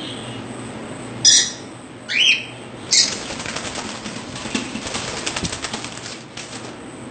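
Caged pet birds give three short, loud calls, one rising in pitch, then flap their wings in a rapid flutter for a few seconds.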